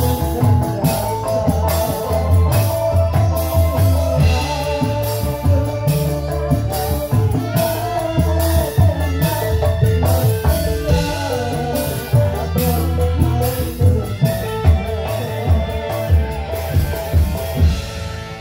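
Live band music through stage speakers: a dance song with a steady drum beat and melody instruments.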